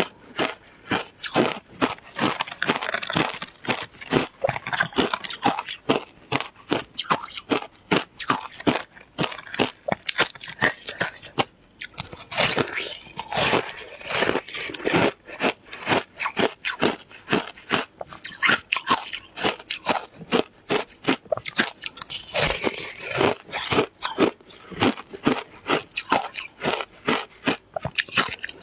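Shaved ice being bitten and chewed close to the microphone: a dense run of crisp crunches, several a second, with a short pause about halfway through.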